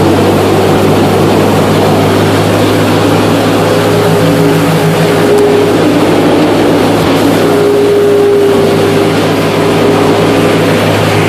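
John Deere 55 combine running while harvesting wheat: a loud, even mechanical drone with a steady low hum and a few higher tones that come and go.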